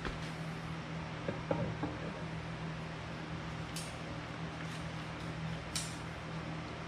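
Steel parts handled during hand assembly: a few light metallic clinks about one and a half seconds in, then two short scrapes near four and six seconds, over a steady low hum.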